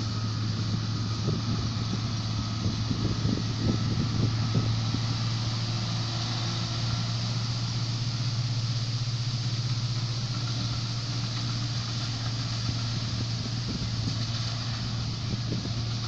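John Deere 955 combine harvester running steadily as it cuts wheat: a constant diesel engine hum under the rushing noise of the header and threshing works. Wind buffets the microphone in the first few seconds.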